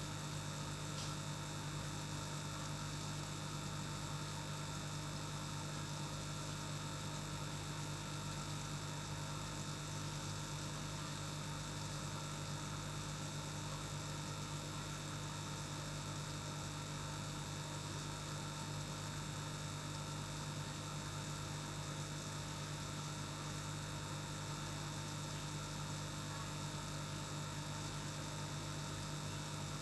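Aquarium air pump humming steadily, a constant low hum with a light hiss.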